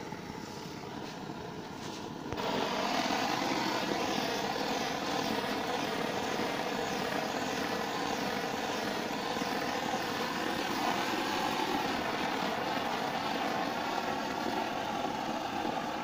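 Gas blowtorch flame roaring steadily, turned up sharply about two seconds in, as it heat-shrinks the termination of an 11 kV XLPE cable.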